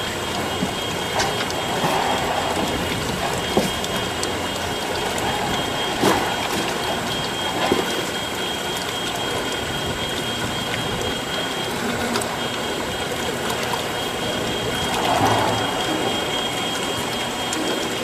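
Vincent screw press with shredder running steadily as it presses a load of tomatoes, with a steady high whine and a few knocks as the pressed pulp is pushed out of the discharge door.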